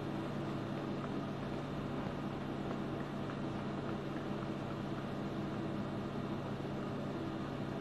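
Steady room hum: an even hiss with a constant low tone underneath.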